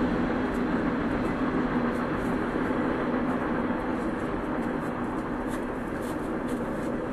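HO-scale model trains running on the layout's track: a steady hum and rumble with faint, scattered clicking.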